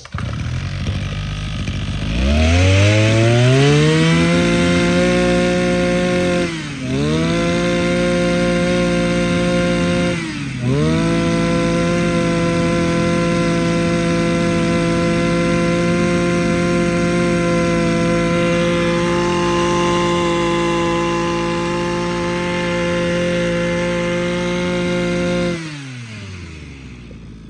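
Echo (Kioritz) 26 cc two-stroke brush cutter engine, 34 mm bore, revved up to full throttle about two seconds in. It drops and comes straight back up twice as the throttle is briefly let off, holds steady at high revs, and winds down near the end.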